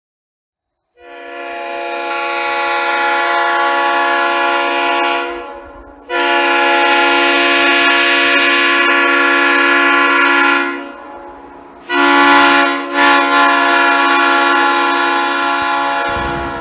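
Leslie S3L three-chime locomotive air horn sounding three long blasts of a few seconds each. The first swells in slowly, and the third stutters briefly just after it starts.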